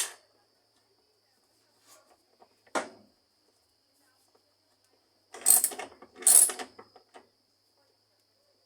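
Metal tools and washing-machine mechanism parts being handled: a click near the start, a knock about three seconds in, then two short rasping metallic bursts around five and six seconds in. A faint steady high tone sits underneath.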